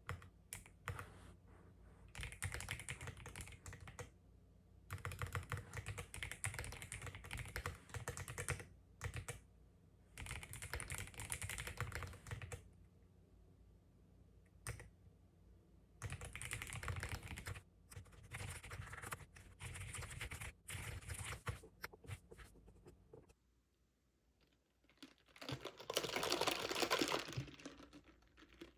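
Typing on a computer keyboard in runs of rapid key clicks, a few seconds each, with short pauses between. Near the end comes a louder, fuller rustling noise.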